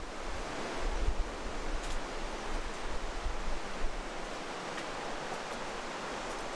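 Steady rush of water from the gorge, with wind buffeting the microphone in the first second or two.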